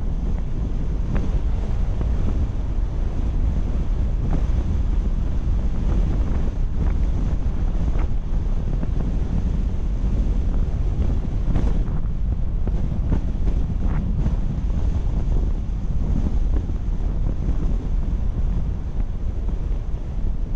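Steady low rumble of wind buffeting the microphone, mixed with road noise from a moving car, with a few faint ticks.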